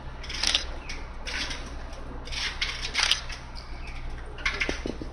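Camera shutters clicking in short bursts, a few times over several seconds, over a steady low hum.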